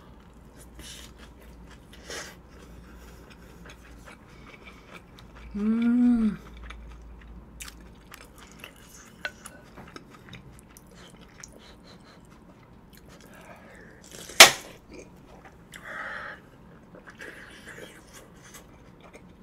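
A person chewing a large mouthful of chive bibimbap, with small wet mouth sounds. About six seconds in there is a short hum of enjoyment, and a single sharp click about fourteen seconds in.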